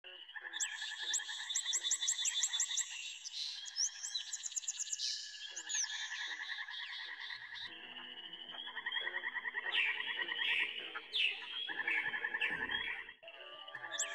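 Tropical jungle chorus of frogs calling in rapid repeated pulses and trills, layered with chirps and whistled calls. The mix of calls changes abruptly about eight seconds in and again near the end.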